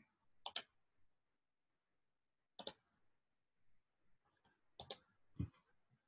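Faint computer mouse clicks: a quick pair about half a second in, a single click near three seconds and another pair near five seconds, followed shortly by a soft low knock.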